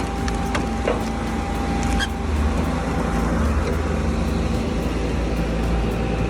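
A heavy wood-processing machine's engine running steadily under load, with a few sharp knocks in the first two seconds.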